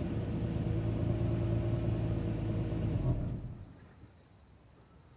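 Nissan Stagea 250RS's 2.5-litre V6 idling through its stock exhaust after a rev, then going quiet about three seconds in, leaving a steady high chirring of crickets.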